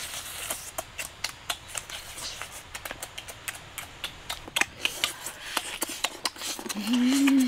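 Close-up eating sounds: wet chewing, mouth smacking and meat tearing as chili-coated roasted ribs are bitten into, many irregular quick clicks. Near the end someone hums a short 'mm-hmm' of enjoyment.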